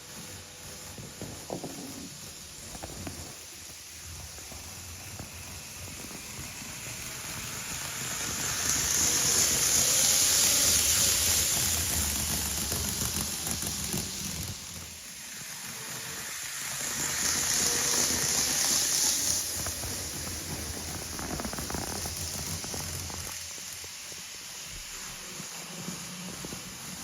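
Train running noise: a hissing rush that swells up and fades twice, first about a third of the way in and again about two-thirds in.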